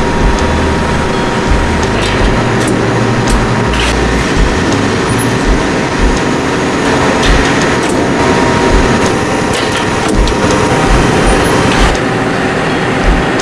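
Press brake bending steel sheet in a fabrication shop: a steady mechanical din with irregular low thuds and a few sharp metallic clanks.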